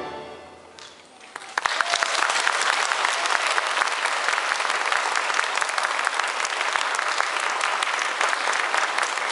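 The saxophone ensemble's final held chord ends and rings away in the hall over about a second, then the audience starts applauding about a second and a half in and keeps clapping steadily.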